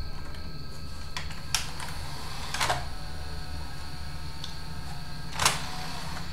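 A DVD player's disc-tray mechanism clicking four times, sharply and irregularly, over a steady electrical hum. The clicking comes as the tray misbehaves because of a misaligned tray sensor.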